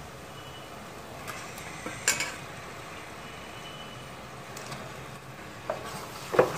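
Masala sizzling quietly in a pressure cooker as raw mutton pieces are dropped in, with a few sharp knocks against the pot, the loudest about two seconds in. Near the end a wooden spatula starts stirring, scraping and knocking the pot.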